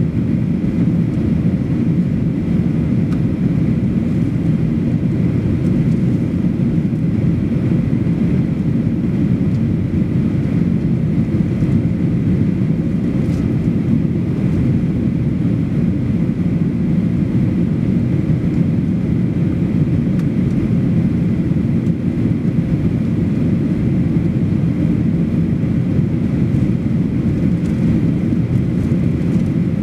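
Steady cabin noise of a Boeing 737-800 in flight, heard from a window seat over the wing: its CFM56-7B turbofan engines and the rushing air make a constant low drone, with a faint steady whine above it.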